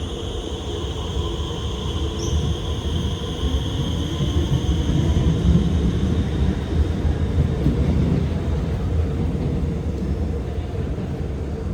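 Alstom R151 metro train running, with a steady wheel-on-rail rumble and the high whine of its SiC-VVVF traction motor fading away. A fainter lower motor tone dips slightly in pitch.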